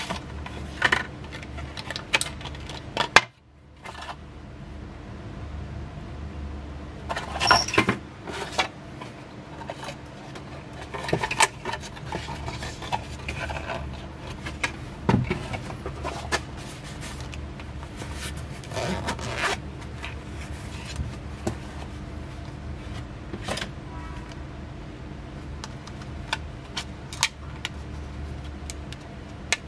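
Hands handling a cardboard box and its packaging and then a portable hard drive in a rubber grip: scattered clicks, taps, scrapes and rustles over a steady low hum, with one sharp click about three seconds in.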